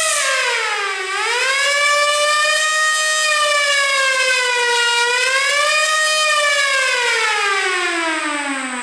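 A 3D-printed motor-driven air-raid siren, built as a Jericho siren for an RC Stuka, sounding a loud pitched wail. Its pitch dips about a second in, climbs back and wavers, then falls steadily over the last few seconds as the rotor slows.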